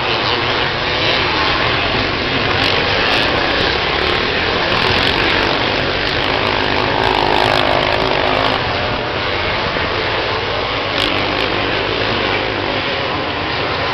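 A pack of motocross bikes racing together, many engines buzzing and revving over one another. One engine stands out loudest for a couple of seconds about halfway through.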